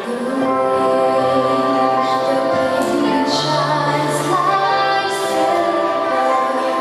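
A song with musical accompaniment, the singer holding long, drawn-out notes.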